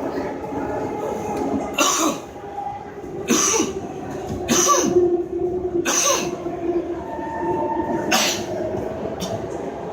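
Interior running noise of an SMRT C151 metro train between stations, a steady rumble with a motor hum holding one pitch through the middle. Five short, sharp noises cut through it, about a second or two apart.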